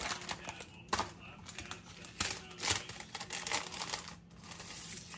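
Plastic instant-noodle seasoning packets crinkling and crackling as they are handled and a dried-vegetable packet is emptied over a bowl of dry noodles, with sharp irregular crackles, the loudest about a second in and twice more a little after two seconds in.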